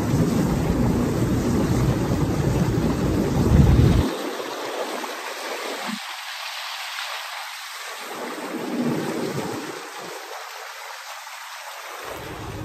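Wind buffeting the phone's microphone on a moving boat: a heavy low rumble for about the first four seconds, then a thinner rushing hiss.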